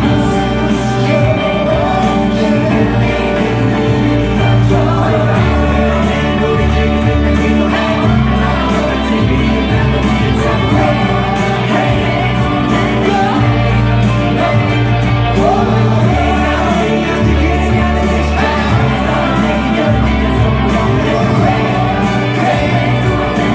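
Live pop concert music: male vocals sung into microphones over a backing band with a steady bass line, heard in a concert arena.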